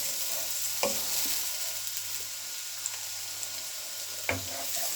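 Chopped vegetables (onions, red peppers, purple carrots, green beans) sizzling as they stir-fry in coconut oil in a pan, a steady hiss. Two brief knocks, about a second in and near the end.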